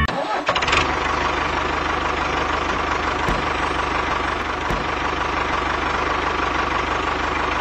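Tractor engine running steadily, with a fast, even chugging and a steady hum.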